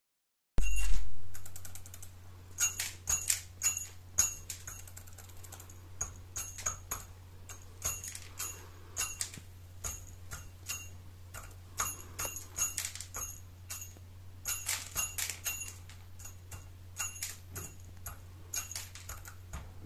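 A hen pecking at feed in a small bowl: irregular runs of sharp clicks, several a second, over a low steady hum. The hen is eating well.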